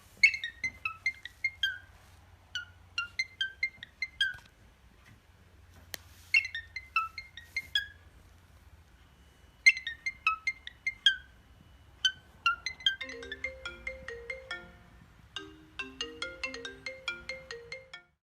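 Apple ringtone playing: a melody of short, quickly fading notes in repeating phrases. A lower accompanying line of notes joins about two-thirds of the way through, and the tune cuts off suddenly near the end.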